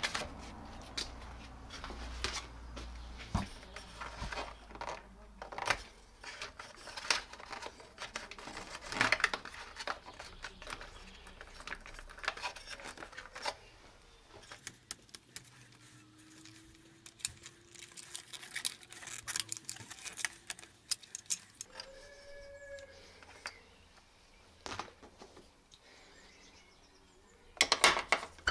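Plastic wiring connectors for the motorcycle's indicators and plate light being pulled apart and the loose wires handled: irregular small clicks and rattles, with a dense run of clicks near the end.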